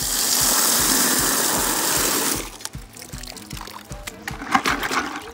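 Water from an outdoor spigot gushing into a plastic bucket of mussels, shut off abruptly about two and a half seconds in, followed by a few light knocks.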